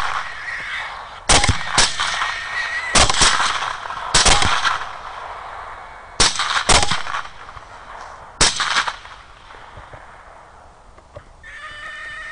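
Rifle fire at hogs: about eight shots, some in quick pairs, each trailing off in an echo. Near the end a long, steady squeal from a hit hog.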